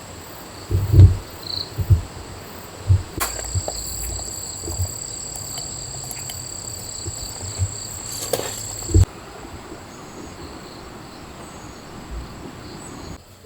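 Insects trilling in a steady high pitch, louder from about three seconds in until about nine seconds in, with scattered low thumps.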